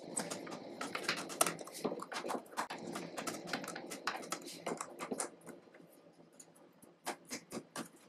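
Small Phillips screwdriver turning out the screws of an iMac's aluminium memory access door: a dense run of small scratchy clicks for about five seconds, then a few separate clicks near the end.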